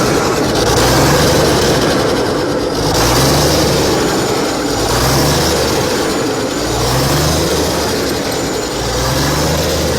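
Damaged engine running just after being started, loud and steady with a low rising surge that repeats about every one and a half seconds; its turbocharger is stuck and not spinning.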